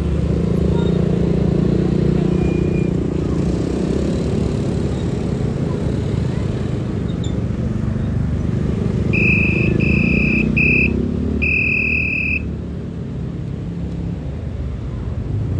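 Motorcycle engines and street traffic running steadily. About two-thirds of the way through, four short high electronic beeps sound in quick succession, the last one the longest.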